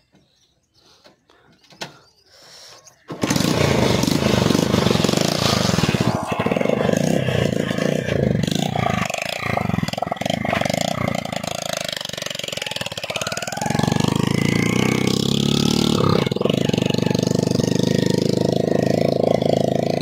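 Motorcycle rickshaw's small engine running on the move. It comes in abruptly about three seconds in and runs loud and steady, its note shifting up about two-thirds of the way through.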